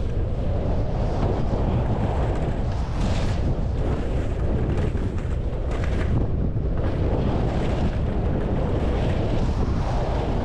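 Wind buffeting the microphone of a skier's camera during a fast downhill run, a steady low rumble, over the hiss of skis sliding and turning through snow that swells and fades with each turn.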